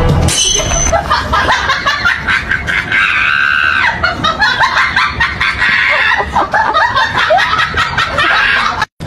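A crowd screaming and laughing, with a loud high-pitched scream held for about a second around the middle. It cuts off abruptly just before the end.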